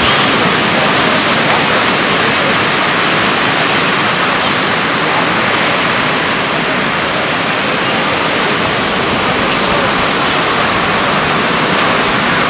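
Steady, loud rush of heavy ocean surf breaking.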